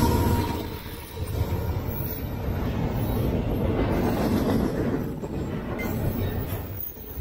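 Canadian Pacific double-stack container freight train rolling past, with a steady rumble and rattle of wheels and cars on the rail. The sound drops in level in the first second, then holds steady.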